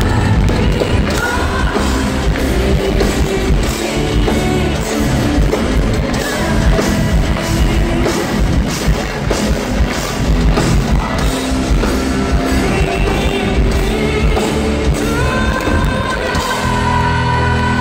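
Live rock band playing at full volume in a large arena: drum kit, electric bass and guitars under a woman's lead vocal. About 17 seconds in, the drumming stops and held notes ring on.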